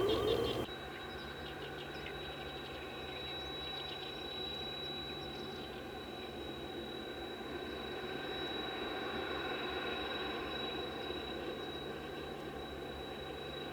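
Steady low hum of distant machinery with a continuous high-pitched whine, and a few faint bird chirps a few seconds in.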